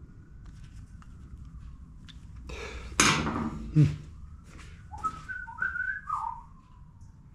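A man whistling a slow, wandering tune, then a run of quicker notes in the second half. A loud, short burst of noise breaks in about three seconds in.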